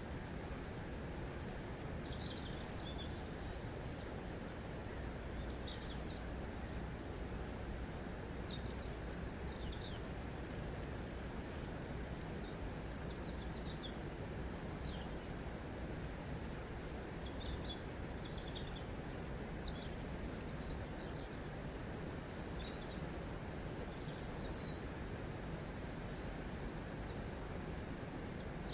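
Steady rush of flowing water, with small birds chirping over it: many short high calls scattered throughout.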